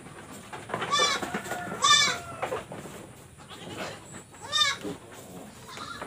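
Goat bleating three times, each a loud call with a quavering pitch.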